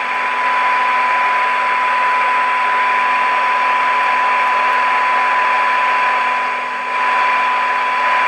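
Transistor radio's speaker playing a steady 1 kHz test tone from a signal generator, buried in loud hiss and static, as the set is aligned. The sound dips briefly about six and a half seconds in, then comes back.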